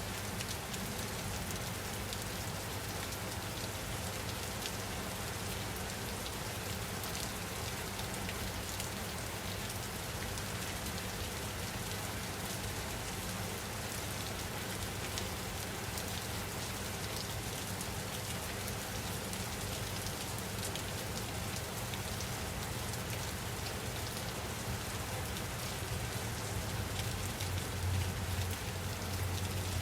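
Steady rain falling on a surface: a dense patter of countless drops with a low rumble underneath, growing slightly louder near the end.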